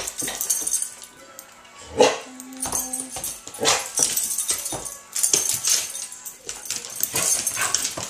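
Several dogs playing together, with scuffling and dog vocal sounds and one loud bark about two seconds in, over steady background music.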